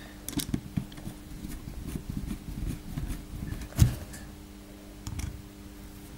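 Screwdriver driving small screws into a Dyson vacuum clutch's plastic housing: a run of light clicks and scrapes, with one sharper click about four seconds in.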